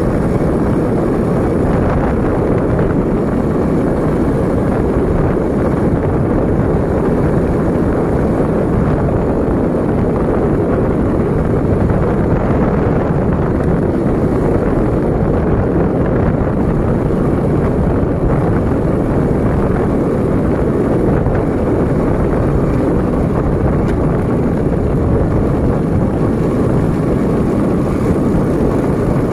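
Steady rumble of a vehicle riding along a paved road, with wind on the microphone. It stays even throughout, with no sudden knocks or changes.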